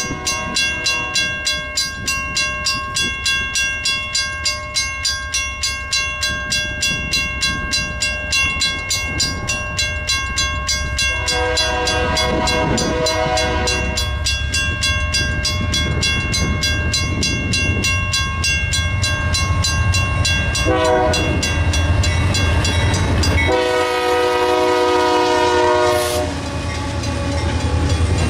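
Grade-crossing warning bell ringing in fast, even strokes as the gates lower. From about eleven seconds in, a diesel locomotive's air horn sounds the crossing signal: a blast, a short one, then a long final blast that stops shortly before the Kansas City Southern-led freight train reaches the crossing, its engines' low rumble growing louder.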